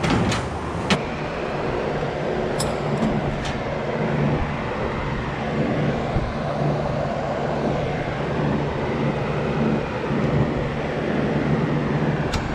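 Tractor engine idling steadily, with a few sharp metal clicks of hand tools and chain in the first few seconds and a quick run of clicks at the very end.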